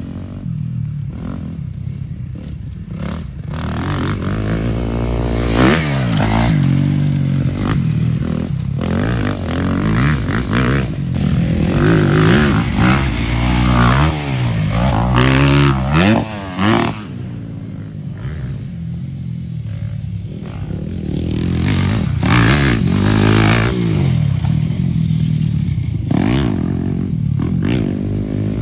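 Dirt bike engines revving hard, their pitch climbing and dropping again and again as the bikes accelerate and shift through the gears. It eases off for a few seconds about two-thirds of the way through, then picks up again.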